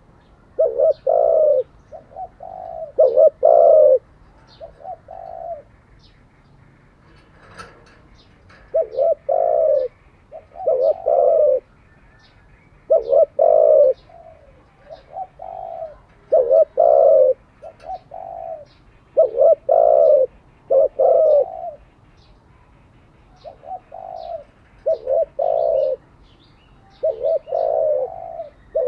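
Spotted dove cooing: repeated phrases of two or three low coos, with a pause of a few seconds near the middle. Faint high chirps of small birds in the background.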